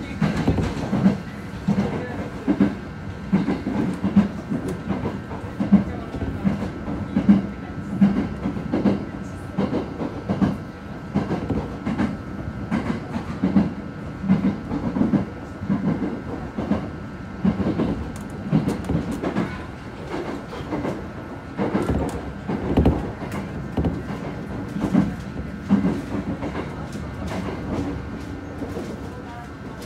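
Passenger train running at speed, heard from inside the car: a steady rumble with a continual series of wheel knocks over the rail joints, and a faint steady hum above.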